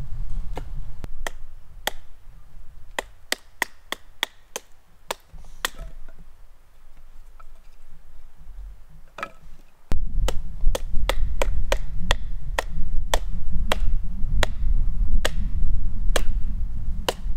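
A hatchet splitting firewood into kindling, its back struck with a wooden baton: a run of sharp wooden knocks, unevenly spaced at one or two a second.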